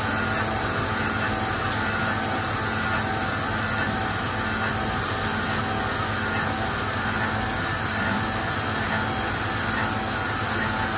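CNC mill's spindle running steadily while the cutter machines counterbores into billet aluminium under flood coolant. A constant high whine sits over the hiss of the coolant spray.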